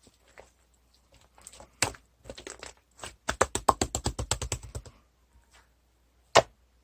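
Sharp clicks and taps: a few scattered single clicks, then a quick run of about eight clicks a second lasting nearly two seconds, and one loud sharp click near the end.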